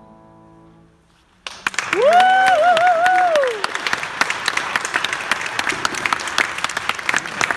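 The song's final chord fades to a brief hush, then the audience starts applauding about a second and a half in. Over the clapping, someone gives a long, wavering high-pitched cheer that rises, holds and falls away.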